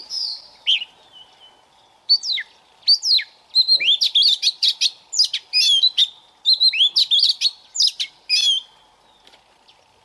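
Caged oriental magpie-robin singing: a run of varied clear whistles and quick up-and-down sweeping notes in short bursts, falling quiet about a second before the end.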